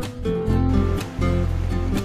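Background music: plucked, guitar-like notes over a steady bass line.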